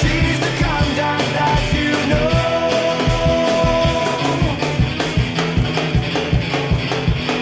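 Rock music with a steady drum beat and a long held lead note from about two seconds in to about four and a half seconds in.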